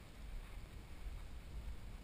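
Low, uneven rumble of wind buffeting an action camera's microphone, over a faint hiss.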